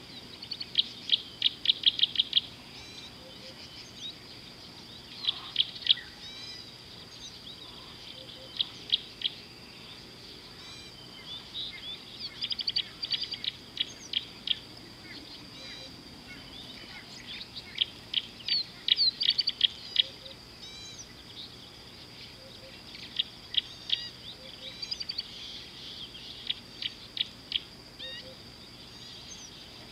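Birds calling in repeated bursts of rapid, sharp notes every few seconds, over a steady high-pitched insect drone.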